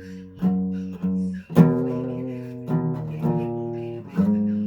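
Acoustic guitar strummed in slow single chords, about six in all, each left to ring and fade before the next.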